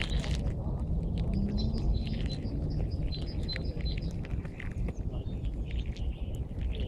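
Small songbirds chirping and singing, with short high notes repeated over and over, over a steady low rumble.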